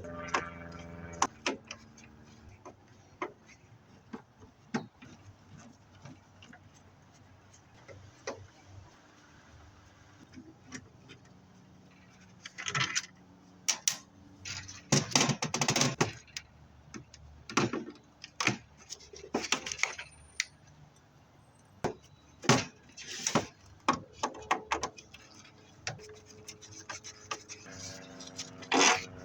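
Metal clinks, knocks and clattering as furnace sheet-metal parts are worked loose and taken apart by hand. The sounds are sparse at first, then come in denser bursts of clatter from about halfway through.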